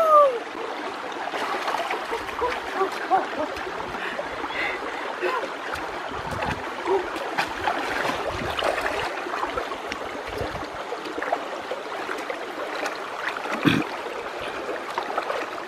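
Shallow rocky stream trickling, with light splashing and sloshing as a person wades through it and feels about in the water with her hands. One louder thump about two seconds before the end.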